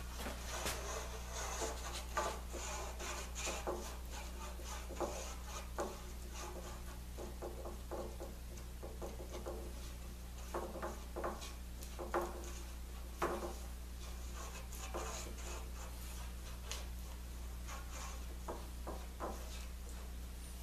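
Foam brush rubbing wood glue onto baltic birch plywood strips, with irregular light taps and knocks as the wooden strips are handled, over a steady low hum.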